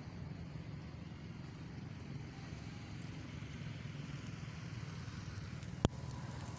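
Steady low rumble of outdoor background noise, with one sharp click near the end.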